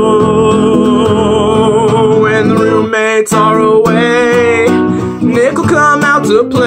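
A man sings over a strummed nylon-string classical guitar: a long held, wavering note, then from about two seconds in a run of notes that slide up and down.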